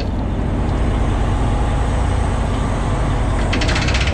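Detroit Diesel Series 60 inline-six diesel of a 47-foot aluminium charter boat running steadily under way. A brighter hiss joins near the end.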